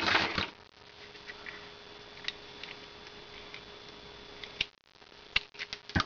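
A brief burst of rustling handling noise, then a quiet room with a faint steady hum and a few scattered small clicks. Near the end come sharper clicks and rattles as hands pick up a length of wire among tools on a workbench.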